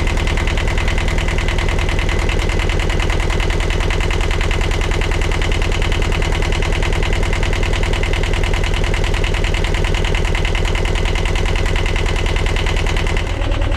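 Sailboat's inboard diesel engine idling with a steady, rapid rhythmic clatter.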